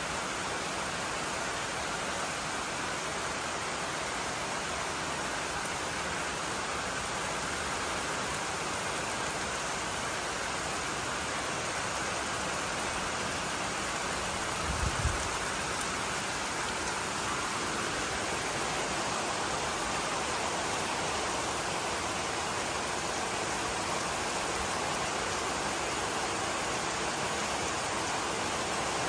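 Steady rain falling on grass, shrubs and trees, an even hiss throughout, with a brief low thump about halfway through.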